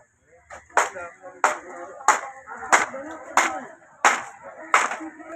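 A steady run of sharp strikes, about seven, roughly one every two-thirds of a second, with faint voices between them.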